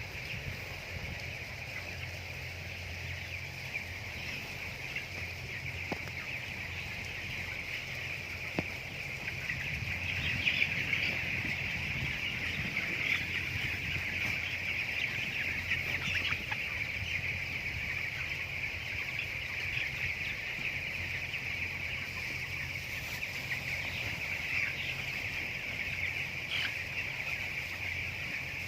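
A flock of broiler chickens calling continuously, many overlapping peeps and clucks blending into one steady chorus that grows a little louder about a third of the way in.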